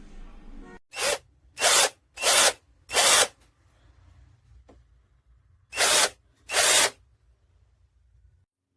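Cordless drill run in short trigger bursts: four quick runs, a pause, then two more.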